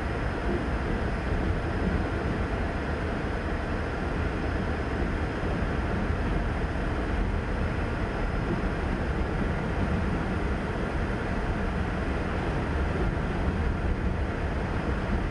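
CSX freight train of covered hopper cars rolling past, its wheels on the rails making a steady low rumble, heard from inside a car.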